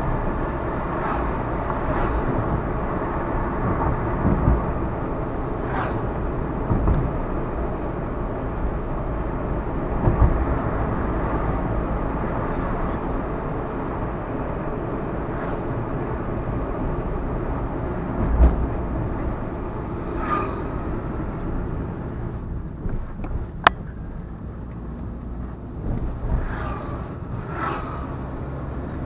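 A car driving along a road, heard as a steady rumble of engine and tyres. A few short low thumps stand out, and there is one sharp click about two-thirds of the way through.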